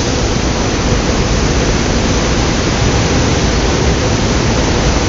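Steady loud rumble and hiss of a SEPTA Silverliner electric commuter train moving on the tracks close by.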